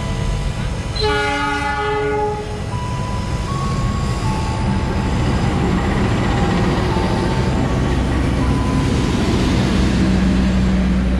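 A train horn sounds once for about a second, a little after the start. Then a train runs past with a steady noise of wheels on rails that grows louder toward the end.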